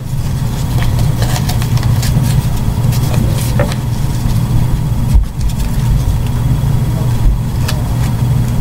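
Duct tape being pulled, stuck down and handled on a cardboard headset frame, with short crackles and taps, over a steady low hum.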